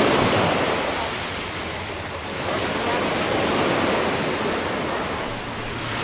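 Sea waves washing onto a sandy beach: a steady rush of surf that eases about two seconds in, swells again, and eases near the end.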